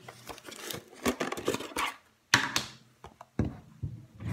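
A run of irregular clicks and knocks close to the microphone, a few a second with short pauses between groups.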